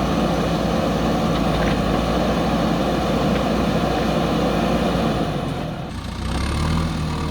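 Diesel engine of a JCB backhoe loader running steadily. About six seconds in the sound briefly drops, then settles into a steadier, lower note.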